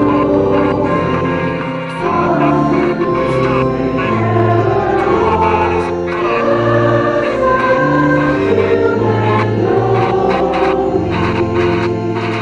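Mixed church choir singing in long held notes over a sustained low accompaniment.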